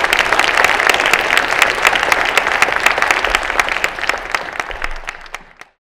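Audience applauding, many hands clapping at once, fading away near the end.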